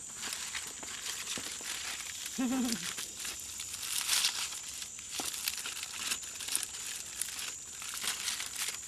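Palm leaf being torn and crinkled by hand, an irregular run of crackling rustles, as its fibres are worked into a peconha climbing loop. A steady high tone runs underneath.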